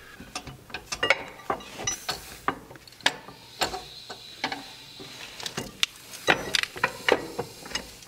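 Irregular metal clinks and knocks from hands and tools working at a Kubota tractor's drive shaft and its fittings from underneath.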